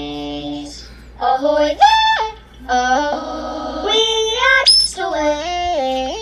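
A high-pitched voice singing a melody in long held notes that step up and down in pitch.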